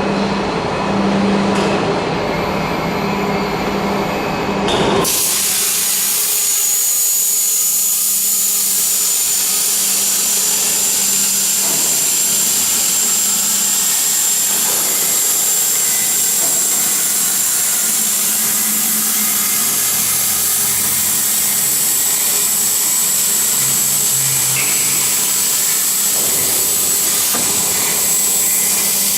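CNC tube-hole machine at work: a hum with machine noise, then about five seconds in a loud steady hiss starts suddenly, with a high whine that creeps slightly upward, as it cuts into the tube.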